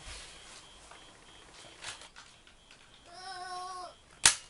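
Quiet plastic handling of a Nerf foam-dart toy blaster. About three seconds in comes a child's drawn-out, level-pitched voice lasting under a second. Near the end there is a single sharp, loud snap from the blaster.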